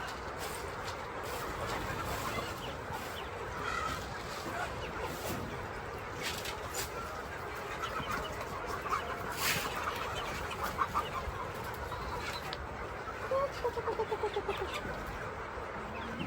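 Chickens clucking over steady background noise, with a quick run of clucks falling in pitch near the end.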